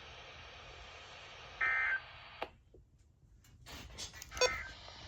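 NOAA Weather Radio receiver hissing, then about one and a half seconds in a short burst of EAS digital data tones, the end-of-message code that closes the alert. The signal then cuts out and comes back with clicks and crackle.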